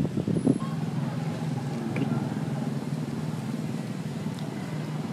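An engine running steadily with a low, even hum, after a few brief thumps in the first half-second.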